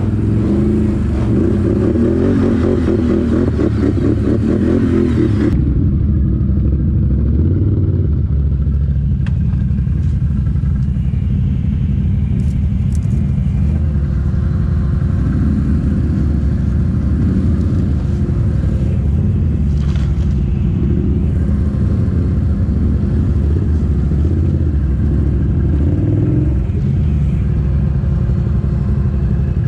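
ATV engines running continuously, their revs rising and falling.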